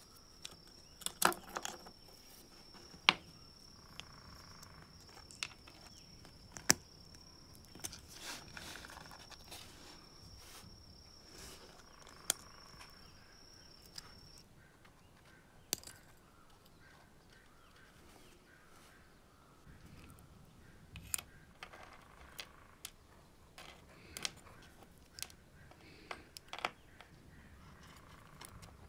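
Scattered small clicks and taps of a small plastic-and-metal electrical switch being handled and taken apart, its parts knocking together and on the bench. A faint, thin, high steady tone runs through the first half and cuts off suddenly about halfway.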